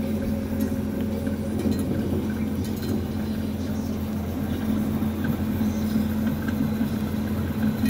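DoAll 16-inch vertical bandsaw, Model 1612-1, running with no workpiece: a steady hum from its drive and the blade running over the wheels.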